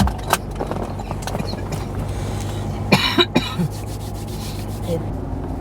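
A person coughing briefly about three seconds in, over the steady low drone of a car cabin on the move.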